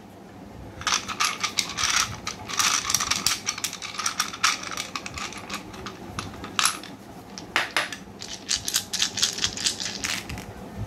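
A handful of small white picture dice being shaken in a small glass bowl and then in cupped hands. The dice rattle and clatter as a dense run of sharp clicks in bursts, starting about a second in and continuing nearly to the end.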